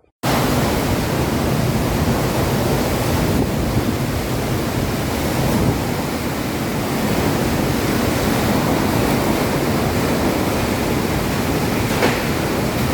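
Steady, loud rushing noise of a heavy rainstorm with strong wind, cutting in abruptly; a faint click about twelve seconds in.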